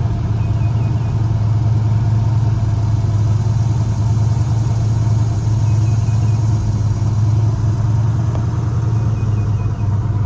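Jeep Grand Wagoneer's engine running through a new Dynomax muffler: a steady, deep exhaust drone that holds an even pitch throughout.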